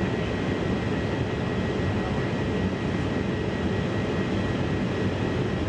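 Steady drone of a jet airliner heard from inside the cabin: engine and airflow noise with a faint steady hum.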